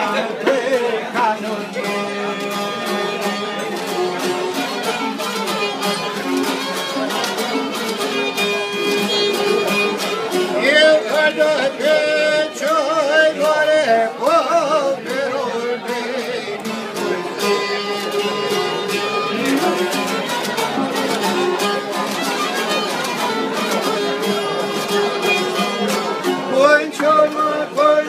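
Albanian folk song played on long-necked plucked lutes, strummed in a quick steady pulse, with a man's voice singing in stretches of the melody.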